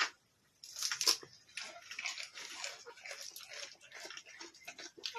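Goats feeding on leafy herb branches: irregular rustling of leaves and crunching. It starts about half a second in, after a single sharp click.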